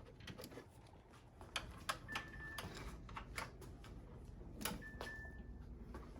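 Scattered clicks and light knocks of plastic and metal parts being handled and fitted under the hood during reassembly of radiator plastics and hoses, with two short high-pitched squeaks or tones partway through.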